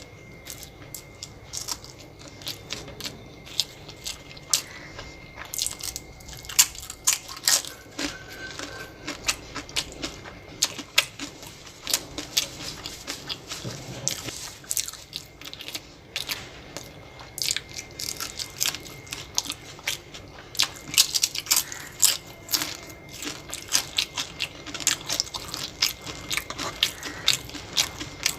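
Close-miked crunching and chewing of crunchy food: many quick, irregular crisp cracks, with mouth and chewing noises between them.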